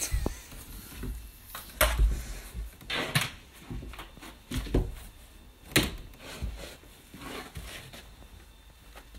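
Irregular knocks, thuds and rustles, about half a dozen, the loudest a little under two seconds in, around three seconds and near six seconds in.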